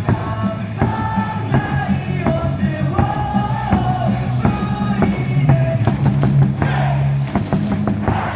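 Stadium loudspeaker music, a sung melody over a steady bass line. About six seconds in, crowd yelling and cheering swells up over it.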